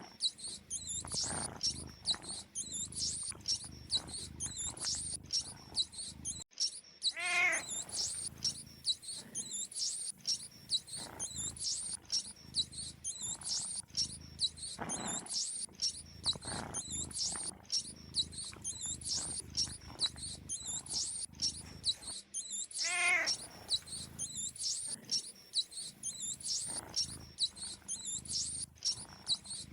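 Rapid high-pitched mouse squeaks repeating without pause. A lower wavering call sounds twice, about 7 and 23 seconds in, and soft scuffs come and go underneath.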